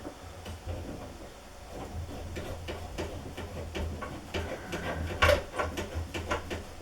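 Water hammer arrestor being screwed by hand onto a washing machine's water tap: a run of small clicks and ticks from the threads and handling, sparse at first and coming thicker after about four seconds, over a low steady hum.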